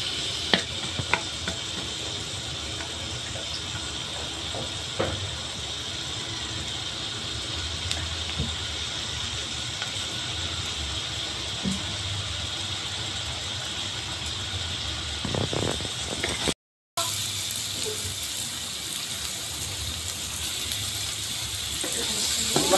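Garlic sizzling in hot oil in a wok, a steady hiss, with a few clicks of a wooden spatula against the pan in the first seconds and again around five and fifteen seconds in. The sound cuts out for a moment about seventeen seconds in, and the sizzling and stirring grow louder near the end as onion and bell pepper go into the pan.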